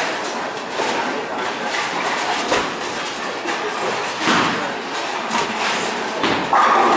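Bowling alley din: balls rolling down the lanes and repeated clattering knocks of pins and machinery, with louder crashes about four seconds in and near the end.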